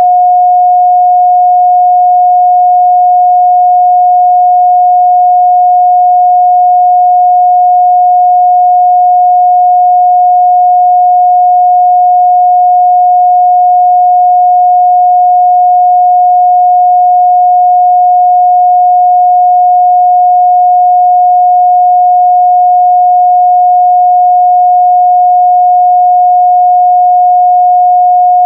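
A pure 721 Hz sine-wave test tone, one steady unbroken pitch held at a constant loud level.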